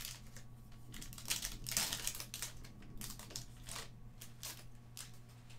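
Crinkling and rustling of foil trading card pack wrappers as packs are handled and opened, in a string of short, irregular bursts, the busiest about one and a half to two seconds in.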